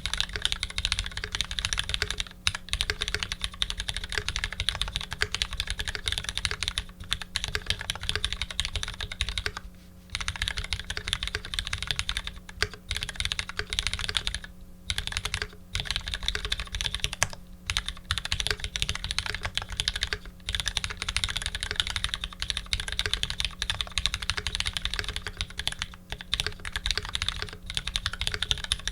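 Continuous fast typing on a custom 65% mechanical keyboard with lubed linear Retooled Black switches, GMK doubleshot keycaps and an aluminium plate: dense clacking keystrokes with a few brief pauses.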